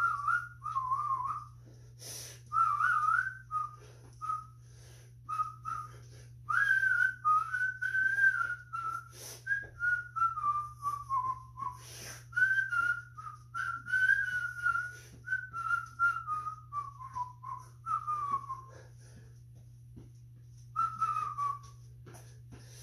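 A man whistling a wandering, bird-like tune in short phrases, the pitch sliding up and drifting down, with a pause near the end.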